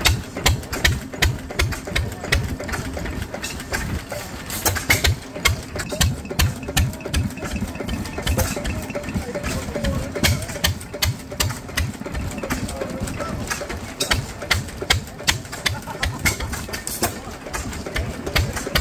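Belt-driven vertical piston pump, driven by an Imperial Super-Diesel stationary engine, running slowly with a steady rhythmic thump, a few beats a second. The pump is pumping on only one or two pistons, which is taken for stuck check valves.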